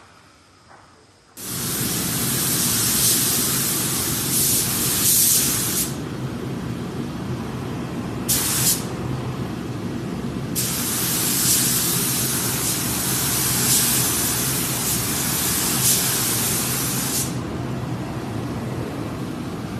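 Loud hissing in three bursts, a long one, a brief one and a longer one, over a steady machine hum that starts about a second in and runs on.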